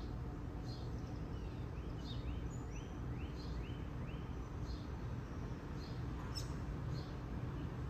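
Birds chirping over a steady low background rumble: a short high chirp repeats about every three-quarters of a second, and a run of about six quick rising-and-falling notes comes a couple of seconds in.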